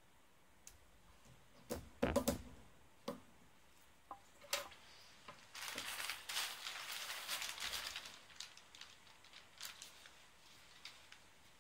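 Clicks and knocks of small robot parts and a metal tool being handled on a wooden table, loudest about two seconds in. Then a plastic bag of small parts crinkles and rustles for a couple of seconds, followed by a few faint clicks.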